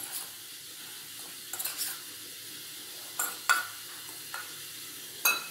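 A metal spoon clinking and scraping against a stainless steel bowl as flour is spooned in and stirred: about six short sharp clinks over a steady background hiss.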